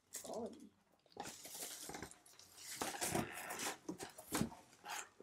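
Faint rustling and light clicks of packing material and hard plastic comic slabs being handled while someone reaches into a shipping box for a CGC-graded comic.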